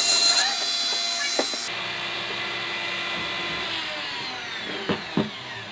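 Flexible-shaft rotary tool whining at speed, its engraving bit grinding against a glass bottle for the first couple of seconds, then spinning free. Near the end the whine falls in pitch as the tool slows, and two knocks sound.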